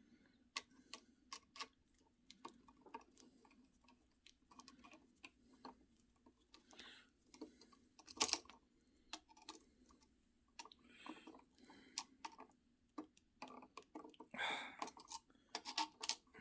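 Faint, irregular small clicks and scrapes of a flathead screwdriver working on a toggle switch's screw terminal, fastening the ground wire, with a sharper click about eight seconds in.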